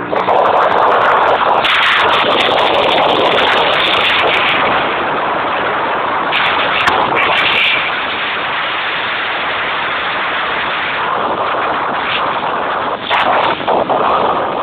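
Loud, heavily distorted wind and road noise inside a car driving at speed, a steady rushing with brief crackling spikes from the overloaded recording.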